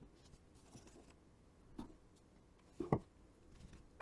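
Felt-tip illustration pen drawing on sketchbook paper: faint scratchy strokes in the first second, then a few short taps of the pen, the loudest about three seconds in.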